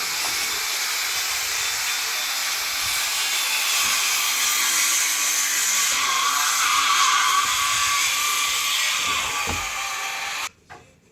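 A handheld power tool running steadily on wood, a loud high hiss-like whine, which cuts off suddenly near the end.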